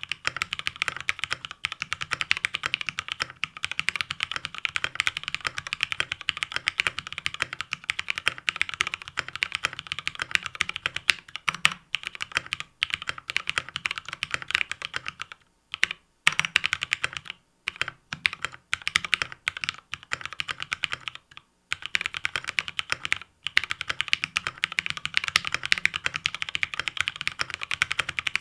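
Fast, continuous typing on an Aaru mechanical keyboard: a dense run of keystroke clicks, broken by a few brief pauses about halfway through.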